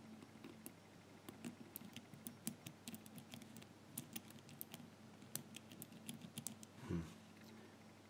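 Faint, irregular clicking of the number wheels on a brass four-wheel combination padlock being turned by finger under shackle tension, as each wheel is felt for binding gates.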